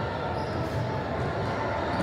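Steady gymnasium background noise: a low rumble with indistinct voices, with no clear ball bounces.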